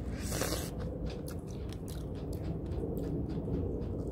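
A ripe strawberry bitten into close to the microphone, a short bite noise about half a second in, then chewing with many small clicks.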